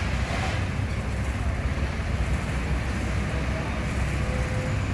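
Steady low rumble of vehicle engines and outdoor street noise.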